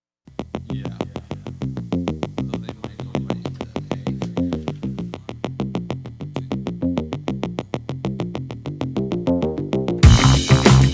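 Electronic background music: a quick, evenly repeating synthesizer note pattern, about six notes a second, then near the end the full track comes in louder with drums and bass.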